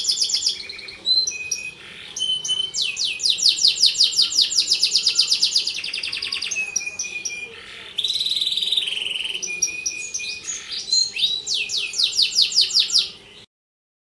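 Domestic canary singing: fast rolling trills and high whistled notes in several phrases, stopping abruptly near the end.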